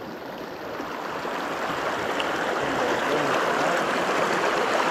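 Shallow mountain creek rushing over rocks: a steady water rush that grows gradually louder.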